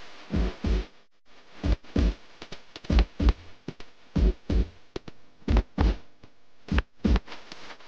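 Music for a Chhattisgarhi karma folk dance, carried by heavy drum strokes that mostly come in pairs, about one pair a second. The music drops out briefly about a second in.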